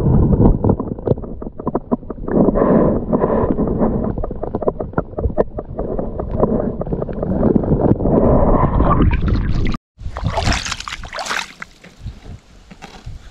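Muffled stream water heard with the microphone under the surface, with many small clicks and knocks as of stones on the streambed. About ten seconds in it cuts to open air, with bright splashing and trickling water that fades away.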